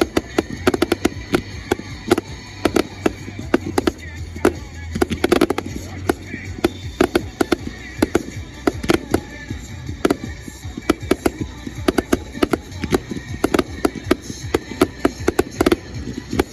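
Fireworks going off in a rapid, irregular series of sharp cracks and bangs, several a second.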